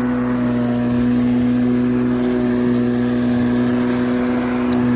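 Litheli 40V cordless brushless lawn mower running, its electric motor and blade giving a steady, even hum.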